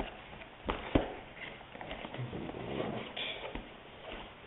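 Cardboard packaging box being handled and opened by hand: two sharp taps about a second in, then light scraping and rustling of the card.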